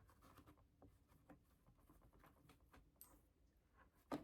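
Near silence with faint rustles and small ticks of needle and thread being worked by hand, then one sharper click near the end.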